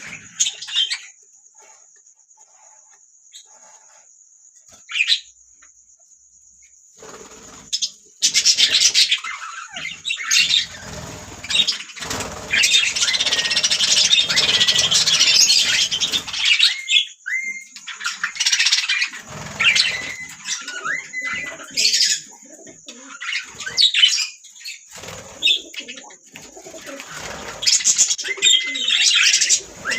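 Budgerigars chattering and chirping: only a few short chirps for the first several seconds, then a busy, continuous warbling chatter from about eight seconds in, mixed with short whistles.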